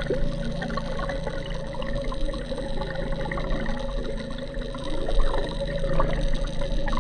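Water rushing and gurgling past an underwater camera towed on the fishing line, heard from below the surface, with a steady hum running underneath.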